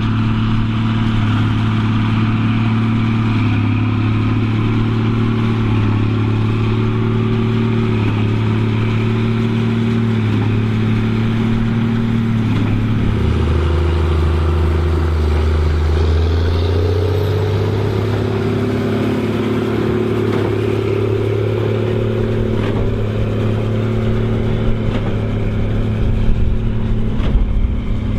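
Case 2294 tractor's six-cylinder turbo diesel running steadily under load pulling a big baler. About halfway through, the engine note drops for a few seconds as it pulls down, then picks back up to its working speed.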